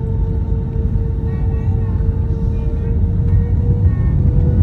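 Cabin noise of an Airbus A321-231 taxiing, heard from a window seat beside the wing: a steady low rumble from its IAE V2500 engines and the wheels, with a steady hum over it, growing a little louder toward the end.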